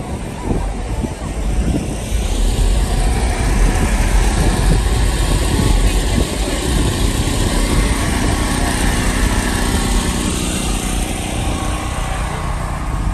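Steady rumble of a motor vehicle's engine running, with a rushing hiss that swells through the middle.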